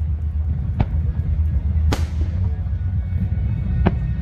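Fireworks bursting: three sharp bangs, about a second in, near two seconds (the loudest) and near the end, over a continuous deep rumble of distant explosions, with music playing.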